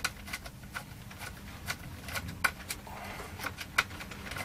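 Screwdriver turning a small bolt out of a metal amplifier chassis while the nut is held: irregular small metallic clicks and taps, over a faint low steady hum.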